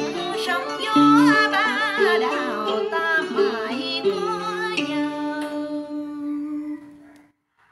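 Closing line of a Vietnamese ca cổ song sung with wide vibrato over instrumental backing. It ends on a long held note that fades out about seven seconds in, then silence.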